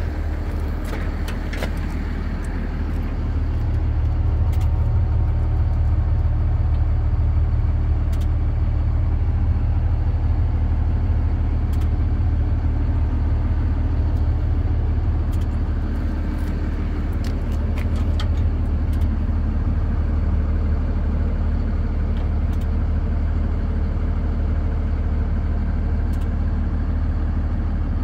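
An engine on a service truck running steadily with a deep hum, growing louder about three seconds in and then holding steady. A few light clicks and knocks sound over it.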